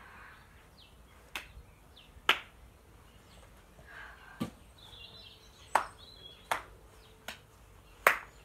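Football being kicked and bouncing: about seven sharp thuds at irregular intervals. Birds chirp faintly in the background.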